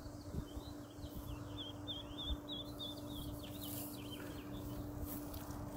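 High chirping of small birds: a quick run of short, wavering notes that lasts about three seconds, over a faint steady hum.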